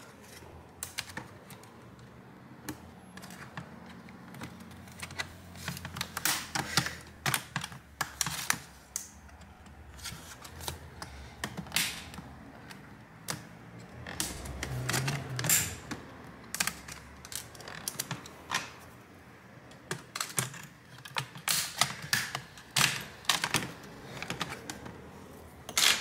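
Plastic palm-rest top case of an Acer Aspire One netbook being lined up and pressed onto the chassis: many irregular plastic clicks, taps and small snaps as it is handled and pushed into place.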